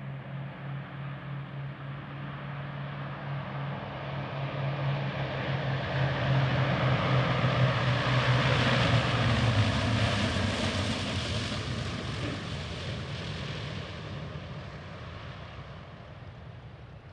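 Boeing B-29 Superfortress's four Wright R-3350 radial engines and propellers droning as the bomber comes in low over the runway to land. The sound swells to its loudest about halfway through as it passes, the engine note drops in pitch, then it fades as the aircraft rolls away.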